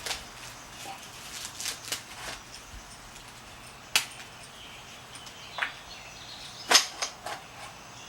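Scattered sharp clicks and taps from brake parts and tools being handled during a brake pad and rotor job, about seven in all, the loudest near the end.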